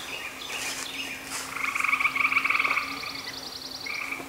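An animal call: a loud, rapid pulsed trill lasting about a second and a half. A thinner, higher trill runs alongside it, and a short repeat comes near the end, over a steady low hum.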